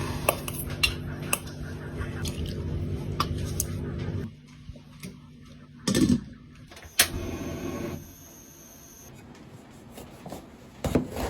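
Kitchen utensils and dishes clinking and knocking while cooking, over a steady low hum that cuts off about four seconds in. Two louder knocks come around the middle.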